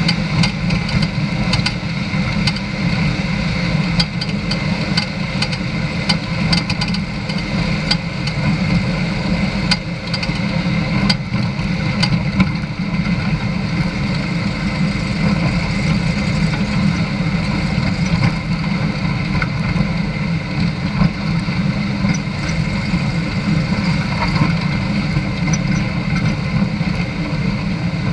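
A vehicle's engine running steadily while driving along a gravel dirt road, with frequent small clicks throughout.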